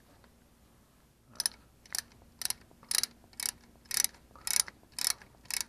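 Hand ratchet wrench clicking in short back-and-forth strokes, about two a second, as the CV-joint axle flange bolts are run out, starting about a second in.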